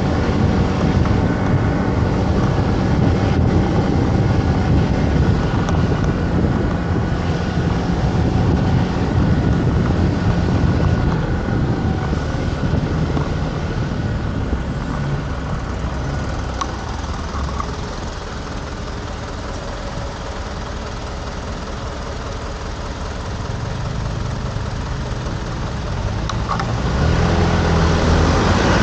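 Motor scooter engine running while riding along a street among other traffic. It gets quieter for a stretch past the middle and louder again near the end.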